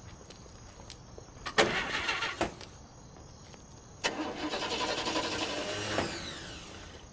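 Car starter cranking twice, a short try and then a longer one that winds down, without the engine catching: the car won't start.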